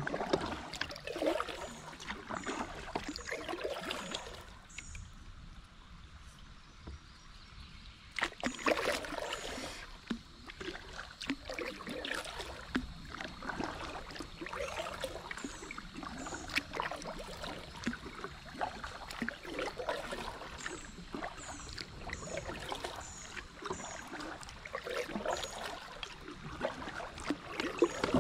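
Kayak paddle strokes splashing and dripping water, with a short lull about five seconds in.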